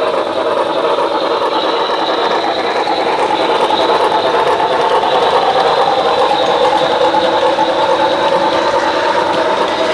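Model train rolling across a girder bridge: a continuous rumble of wheels on track with a steady high whine, growing a little louder over the first few seconds.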